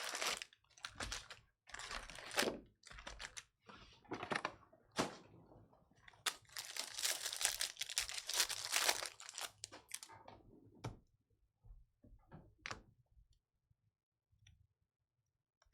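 Baseball card pack wrappers being torn open and crinkled, in irregular bursts of tearing and rustling for about eleven seconds, then only a few light taps.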